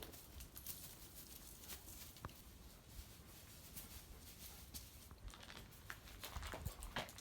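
Faint footsteps with light crackling and crunching of debris, scattered clicks and a few soft low thumps, busier near the end.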